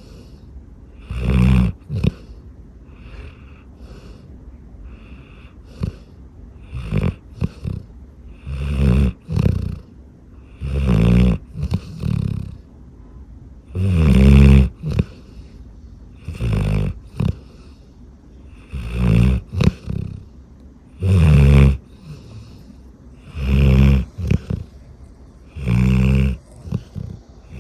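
Golden retriever snoring loudly and rhythmically, a low, rattling snore about every two and a half seconds, some breaths coming in two parts.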